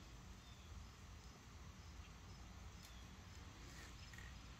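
Near silence, with a faint high chirp repeating evenly a few times a second.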